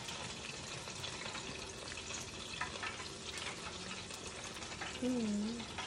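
A steady hiss with faint scattered clicks, and about five seconds in a short wavering hummed "mmm" from a child tasting fried chicken.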